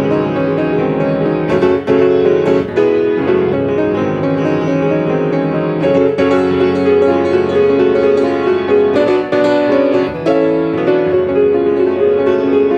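Solo piano played continuously, with many notes sounding at once and fresh notes struck throughout.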